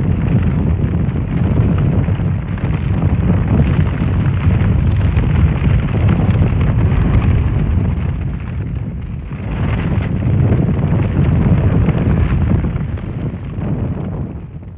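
Wood fire burning hard in the firebox of a wood-fired chambered kiln during bisque firing: a loud, steady rushing that dips briefly about nine seconds in and falls away near the end.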